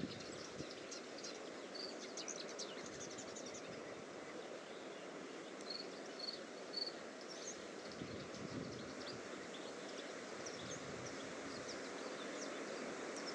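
Faint, steady rushing hiss of an Airbus A319-111's CFM56 jet engines on final approach, growing slightly louder near the end, with short high chirps over it.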